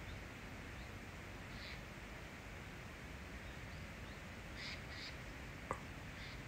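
Outdoor ambience: a steady background hiss with a few short bird calls, two of them close together past the middle, and a single brief tick shortly before the end.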